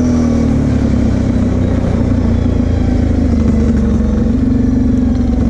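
Quad (ATV) engine running under the rider; its note falls in the first half second, then holds lower and roughly steady.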